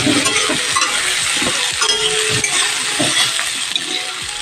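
Potato wedges sizzling as they fry in oil in a metal kadai, with a metal spatula scraping and turning them in the pan in short strokes.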